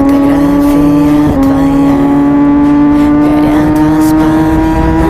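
Motorcycle engine pulling under load, its pitch rising slowly and steadily, with a brief dip about a second in before it climbs again.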